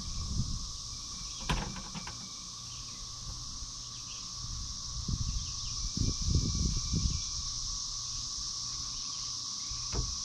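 Outdoor ambience with a steady high-pitched insect drone. Over it come a sharp knock about a second and a half in and a few dull low thumps in the middle, from hands-on work on a wooden stud and rafter frame.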